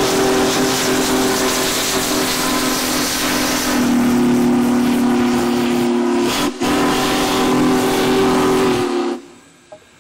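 Union Pacific 4014 Big Boy steam locomotive's chime whistle blowing one long, steady, several-note blast over the hiss and rumble of the passing engine, its lower note growing stronger about four seconds in. It breaks for a moment just past six seconds and then cuts off abruptly about nine seconds in.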